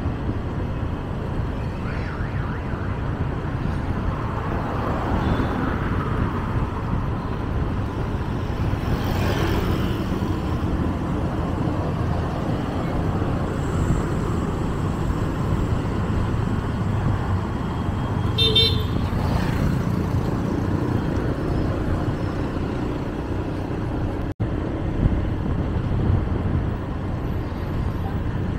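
Steady road traffic and vehicle running noise heard while driving, with a brief horn toot about two-thirds of the way through. The sound cuts out for an instant a little later.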